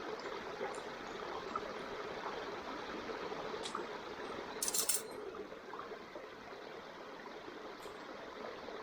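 Wood campfire burning: scattered small crackling pops over a steady rushing hiss, with one short, louder burst of crackling about halfway through.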